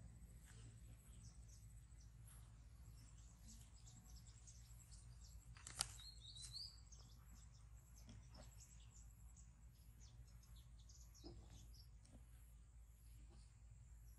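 Near silence with faint, short high-pitched animal chirps scattered throughout over a low steady hum. A single sharp click comes a little before the middle, followed by a brief higher chirp.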